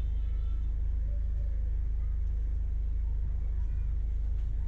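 Steady low rumble of a car driving on the road: engine and tyre noise.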